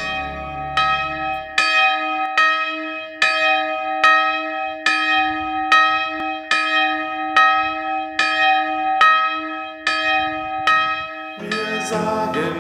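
A single church bell ringing, struck in an even rhythm a little faster than once a second, each stroke leaving a long hum under the next. Near the end the bell stops and acoustic guitar music begins.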